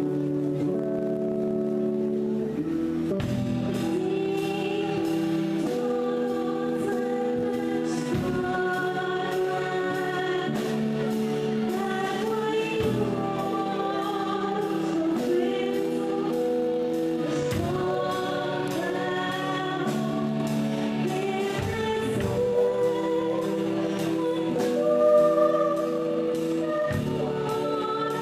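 Live band playing a Christian song: singing over keyboard, electric guitars and drums with a steady beat. A woman sings at the microphone, holding long notes.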